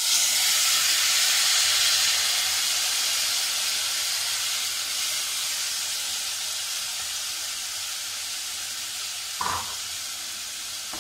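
Soaked chana dal hitting hot oil and spices in a pressure cooker: a loud sizzle that slowly grows quieter. A short knock sounds about nine and a half seconds in.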